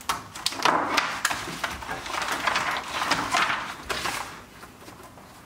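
Plastic bag packaging crinkling and rustling with small clicks as a printed circuit board in its plastic wrapping is handled and lifted out; it dies down about four seconds in.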